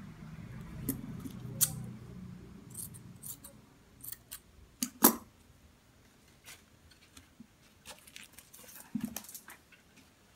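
Steel scissors cutting ribbon and being handled on a table: a scattered series of sharp snips and clicks, the loudest about five seconds in. A low background rumble fades out in the first few seconds.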